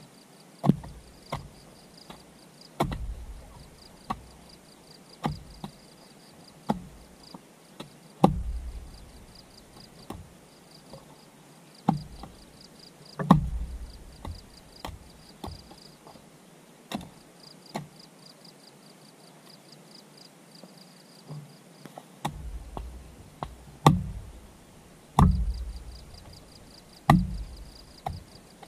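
Heavy chopping strikes of a hand tool, irregular, about one every second or two, each a sharp hit with a dull thud, with a pause of a few seconds past the middle. Insects chirp faintly in pulses behind.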